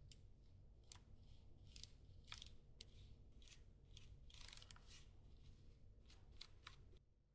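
Faint, irregular scratchy handling sounds: about a dozen short strokes in quick succession over a low steady hum, stopping just before the end.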